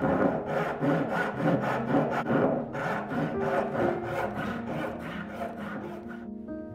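Hand saw cutting a curly birch block in quick, even strokes, with soft music underneath; the sawing stops about six seconds in.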